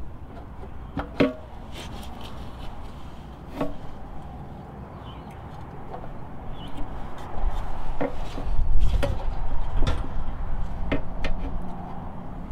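Scattered light clicks and knocks of a hand working the throttle linkage on a tiller's small engine carburetor, with low thuds and rumbling from a little past halfway on.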